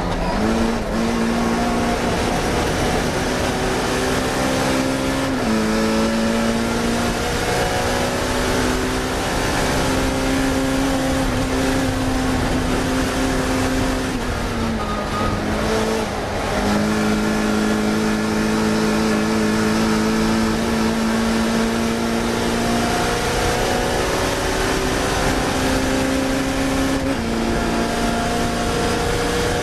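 Classic Mini racing car's engine under hard acceleration. Its pitch climbs steadily, then drops at each gear change, about five times, with a brief lift and a lower note around the middle.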